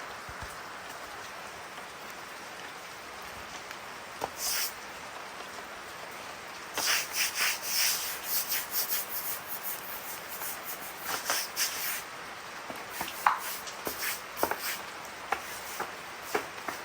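Steady rain hiss, with a run of quick rubbing or scraping strokes from about seven to twelve seconds in and a few scattered sharp clicks after.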